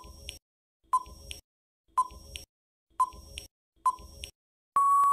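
Countdown timer sound effect: five short beeps, one a second, then a longer steady beep as the count runs out.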